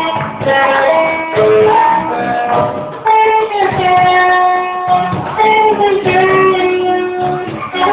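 A band playing music: guitar accompaniment under a melody line of held notes that slide from one pitch to the next.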